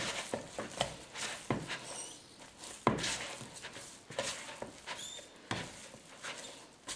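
Hands kneading soft dough in a plastic mixing bowl: irregular soft thumps and knocks, about one a second, as the dough is pressed and pushed against the bowl, with a couple of faint high squeaks.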